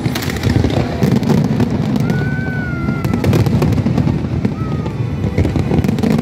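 Fireworks display: a dense run of bangs and crackles over a continuous low rumble, with a high whistle about two seconds in and a shorter one later.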